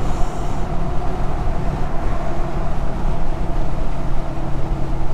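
Steady low road and engine rumble inside the cab of a Dodge Ram 2500 pickup while it is being driven, with a faint even drone over it.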